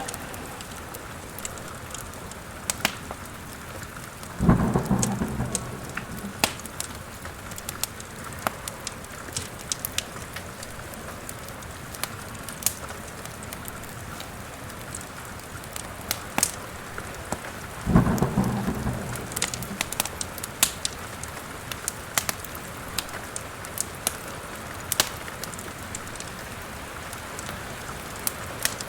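Steady rain with two rumbles of thunder, about four seconds in and again about eighteen seconds in, each fading over a couple of seconds, over the sharp, scattered crackling of a fireplace fire.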